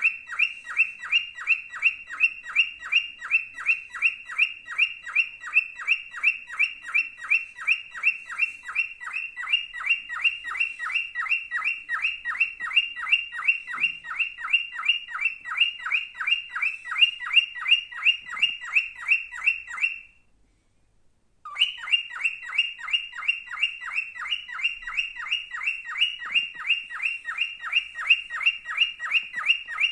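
White male cockatiel chirping: a long, very even string of short chirps, about three a second, which breaks off for about a second two-thirds of the way through.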